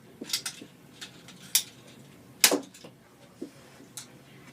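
Nerf foam-dart pistol being primed and fired: a series of sharp plastic clacks and snaps, about six in all, the loudest about two and a half seconds in.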